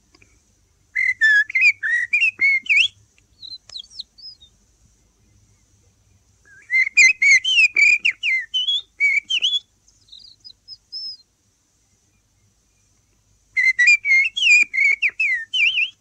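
A man whistling an imitation of a Eurasian blackbird's song: three phrases of fluty warbling, each followed by a very high, twittering portion. A faint hum of an old off-air radio recording lies beneath.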